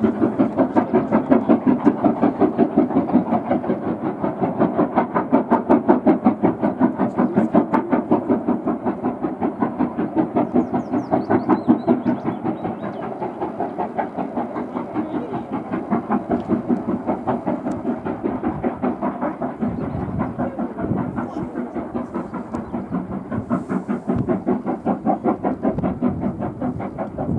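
Steam locomotive hauling the Jacobite train, chuffing in a rapid, even rhythm as it works up the line; the beat eases off somewhat about halfway through.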